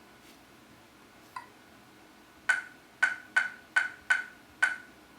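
Laser projection keyboard's electronic key-click sound, one click for each registered keystroke: a faint click, then six sharp, identical clicks with a short pitched ring, about two to three a second.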